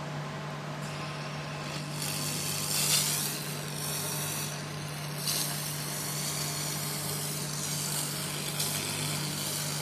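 Hand-held fiber laser head firing on a steel plate: a hiss with spark crackle starts about two seconds in and swells a few times, over a steady machine hum.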